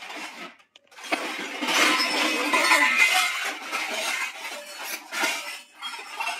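Stainless steel pots and bowls clinking and clattering against each other as they are moved and stacked, a dense run of clatter from about a second in, then a few separate clinks near the end.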